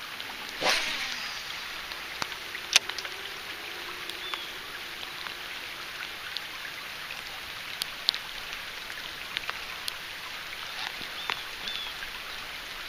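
Steady hiss of rain with scattered sharp drips and ticks, and a brief whoosh just under a second in.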